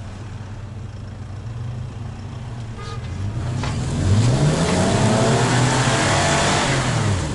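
Engines of the towing vehicles, the nearest a Toyota FJ Cruiser hitched to the boat trailer, revving up from about three seconds in, held high and loud, then dropping off near the end. They are straining under load to drag a stuck boat on its trailer out of a pit.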